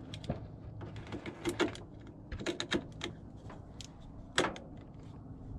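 Irregular clicks and clacks of a portable air compressor's spring-loaded battery clamps being handled and clipped onto a car battery's terminals, the sharpest click about four and a half seconds in.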